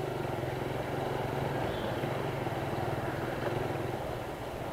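Motorcycle engine running steadily at a low, even pitch as the bike rides along, easing off slightly near the end.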